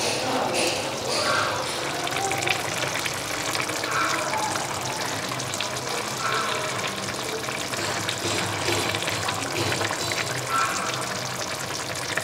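Chicken korma simmering in an open pan over a gas flame: the oily onion-and-chicken sauce bubbling and crackling steadily.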